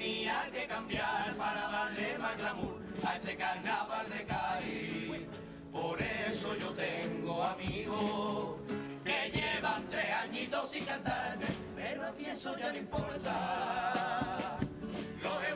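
A junior chirigota, a young Cádiz carnival group, singing in chorus. The voices are accompanied by Spanish guitars and a steady drum beat.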